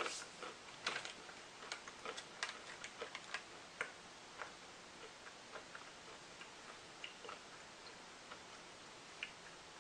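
Chewing a mouthful of crunchy snack mix with honey-coated almonds: irregular small crunches and clicks, densest over the first few seconds, then sparser.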